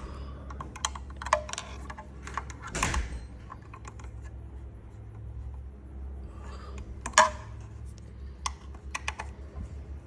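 Scattered clicks and knocks of hand tools and metal parts being handled while an electric scooter's wheel brake is tightened, the loudest knock about seven seconds in, over a steady low hum.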